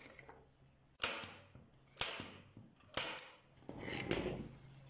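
Hand rubbing a small wooden piece with a pad on a workbench: three quick scratchy strokes about a second apart, each fading fast, then a longer stretch of rubbing near the end.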